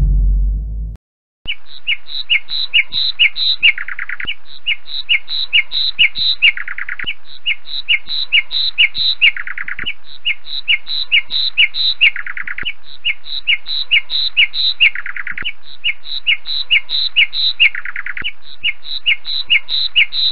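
Lapwing calling: runs of short, sharp, high notes at about four a second, broken about every three seconds by a longer, lower note, repeating evenly. Before the calls, a burst of music cuts off about a second in.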